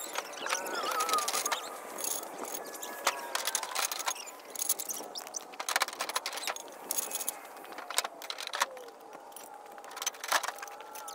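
Steel parts of a storage-shelter frame clinking and knocking together as they are handled and sorted in the crate: irregular sharp metallic clicks and clanks, with faint wavering tones underneath.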